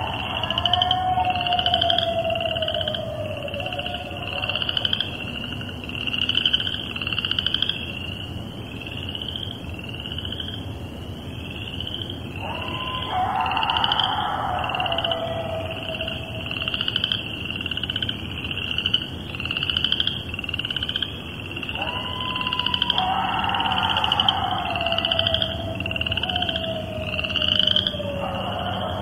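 Coyote pack howling and yipping in three bouts, in long falling, wavering howls: one fading out a few seconds in, one about halfway, and one near the end. Behind it runs a continuous chorus of chorus frogs, their short rising trills repeating steadily.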